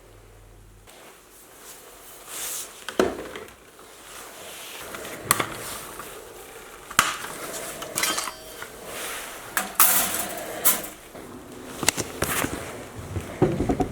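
Irregular sharp knocks and light clinks, about a dozen, as hand tools and pieces of wood are picked up and set down on a workbench.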